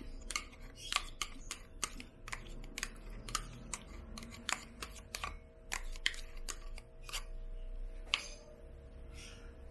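Metal spoon scraping and tapping against a plastic measuring cup while scooping mayonnaise into a glass bowl: irregular light clicks, about one or two a second, thinning out near the end.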